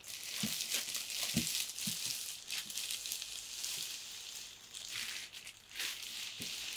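Clear plastic bag around a cardboard box crinkling and rustling as the box is turned and handled, with a few soft bumps along the way.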